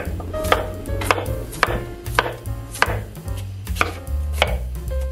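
Chef's knife slicing through raw potatoes and knocking on a wooden cutting board, in an even rhythm of about two cuts a second.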